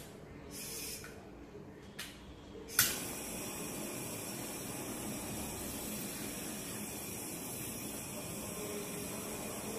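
Handheld kitchen blowtorch: a short hiss about half a second in and two sharp clicks near the three-second mark, then the steady hiss of the torch flame.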